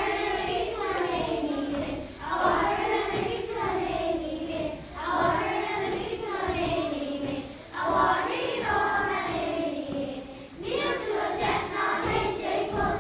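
A class of young children singing together as a choir, in repeated phrases about two and a half seconds long.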